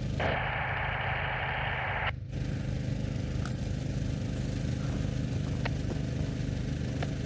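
Small engine running steadily, driving the pump that feeds a root-injection probe. A brighter, hissing upper layer of the sound drops away about two seconds in, leaving the low engine note.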